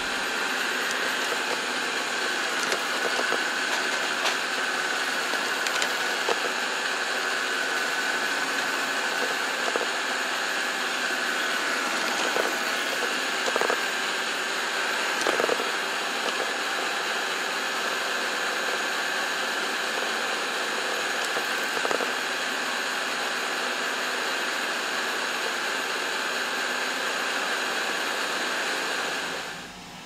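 Bagotte BG700 robot vacuum running: a steady whir of its suction fan with a constant high whine, broken by a few short sharp clicks. The sound cuts off abruptly near the end.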